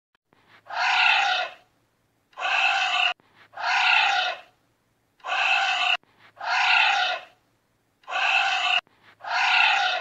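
Giant anteater calls: seven short, harsh calls, each just under a second, repeated about every one and a half seconds with silence between them, several cut off abruptly.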